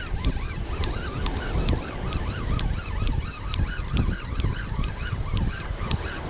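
Saltwater spinning reel being cranked to retrieve line: a whirring whine that rises and falls in pitch over and over, with a light tick about twice a second. Heavy wind buffets the microphone underneath.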